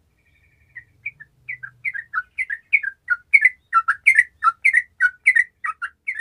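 Yellow-vented bulbul (trucukan) singing a lively run of quick, bubbling whistled notes. The song starts about a second in and grows louder, carrying on without a break.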